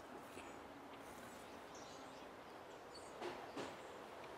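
Faint outdoor ambience with small birds chirping in the background, and two brief soft clicks a little past three seconds in.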